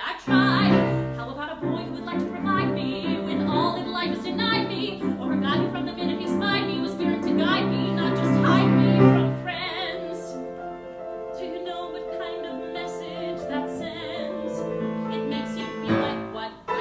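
Musical theatre song: a female voice singing with vibrato over piano accompaniment. The music swells to its loudest about nine seconds in, then drops back softer.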